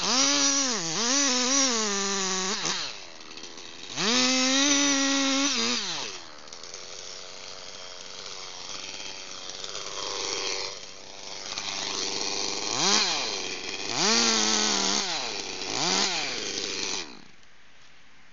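Petrol chainsaw cutting into the trunk of a large tree at full throttle, its pitch sagging under load. The throttle is let off and opened again several times, with three short revs near the end before the sound cuts off suddenly.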